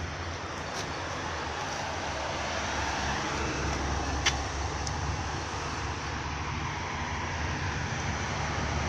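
Steady low rumble of outdoor street noise, with one sharp click about four seconds in.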